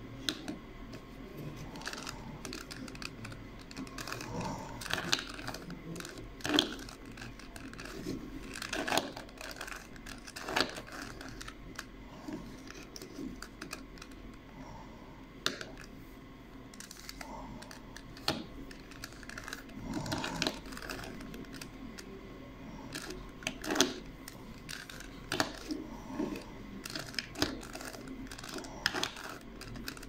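Plastic 3x3 Rubik's cube turned by hand, its layers clicking and clacking irregularly as each move snaps into place, with a few louder clacks scattered throughout.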